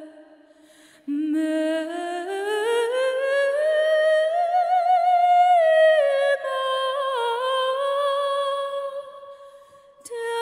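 Solo female soprano voice singing with no audible accompaniment. About a second in, one long note enters low and glides slowly upward with vibrato, is held high for a while, then steps down to a lower sustained note that fades out near the end.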